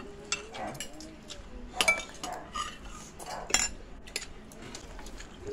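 Metal spoons clinking and scraping against ceramic plates and bowls while eating, in a string of short, irregular clinks. The sharpest come about two seconds in, one ringing briefly, and again a little past three seconds.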